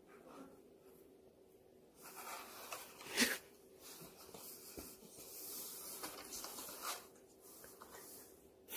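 Cat rubbing and clawing at a corrugated cardboard scratcher: a scratchy rustle of cardboard starting about two seconds in and lasting some five seconds, with a sharp click about a second into it.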